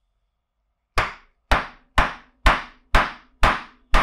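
Mallet blows on a wood chisel driven upright into a block of wood: seven sharp strikes about two a second, starting about a second in.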